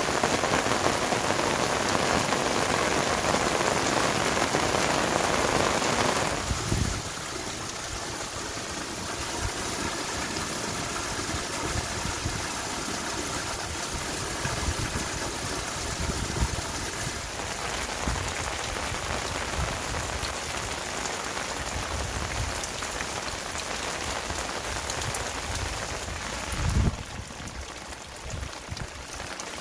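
Heavy rain falling in a steady downpour. About six seconds in it turns abruptly quieter, to a softer steady rain with scattered low thumps. A louder thump comes near the end, after which the rain is quieter still.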